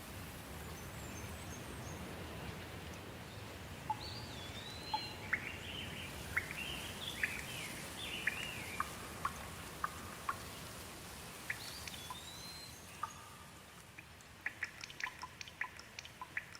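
Steady rain falling, with a songbird singing short whistled phrases that rise and fall, about four seconds in and again around twelve seconds. Near the end the rain hiss thins and quick sharp ticks of dripping water take over.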